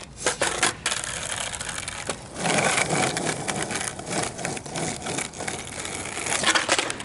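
Skateboard wheels rolling over rough asphalt, a steady grinding noise starting about two seconds in. Sharp clacks of the board on the pavement come in the first second and again near the end.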